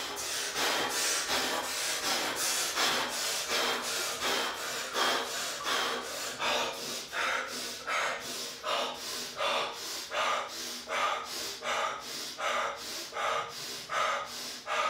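A man's fast, heavy breathing, about two sharp breaths a second in a steady rhythm: cold-shock breathing while sitting in a freezing cold bath.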